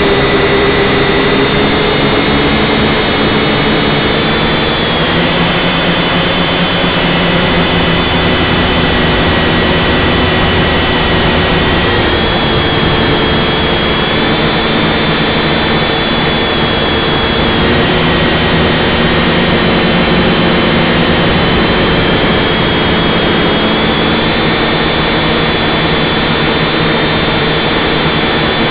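Syma X5C quadcopter's small brushed motors and propellers whining steadily, heard close up from the drone's onboard camera, over a constant rushing noise. The whine's pitch steps up and down a little a few times as the throttle changes.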